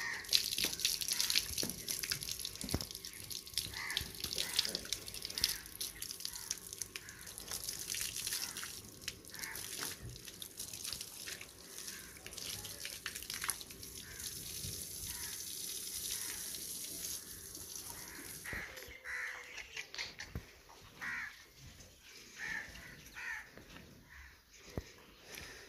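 Water splashing and running over livestock being washed down: a dense hiss with scattered splashes that stops about three-quarters of the way through. Short bird calls follow near the end.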